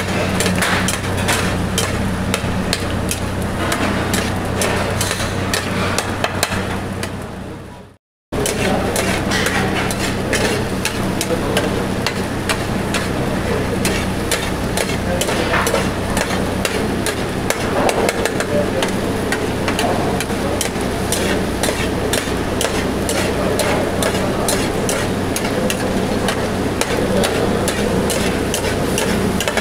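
Mutton and its stock boiling and frying hard in a large metal karahi over a high gas flame, being cooked down (bhuna) on high heat. A metal spatula knocks and scrapes against the pan again and again as the meat is stirred. The sound cuts out briefly about eight seconds in.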